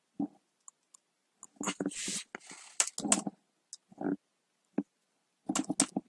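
Computer keyboard being typed on: irregular clicks of single keystrokes and short runs of keys, with a brief hiss about two seconds in.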